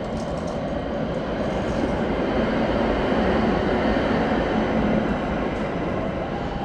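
A vehicle passing close by on the street, a steady rumbling noise that swells to its loudest around the middle and then eases off.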